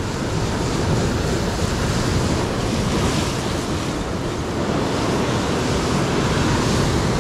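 Sea surf breaking and washing over the rocks in a steady rush, with wind buffeting the microphone.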